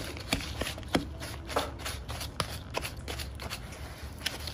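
Fingers rubbing and squeezing a crumbly brown sugar and cinnamon mixture against a plastic bowl, making irregular gritty scrapes and small clicks.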